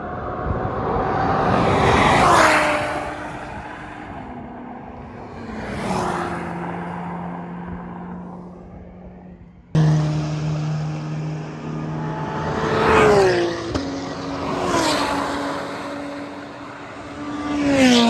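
Race cars passing one after another at full throttle, about five pass-bys. Each grows louder, then its engine note drops sharply in pitch as the car goes by.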